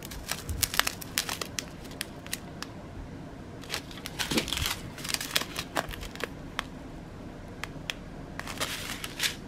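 Small plastic bags of round diamond-painting drills crinkling and rustling as they are picked up, sorted and held up, with scattered sharp crackles.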